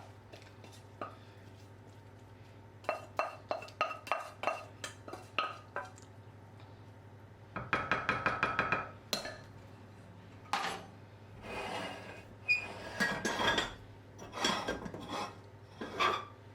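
Kitchen utensils and dishes clinking and knocking during food preparation: two runs of quick, even strokes, the faster one about halfway through, with scattered single knocks around them.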